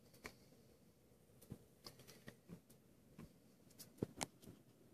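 Near silence: room tone with a few faint, scattered clicks and taps, the two loudest close together about four seconds in.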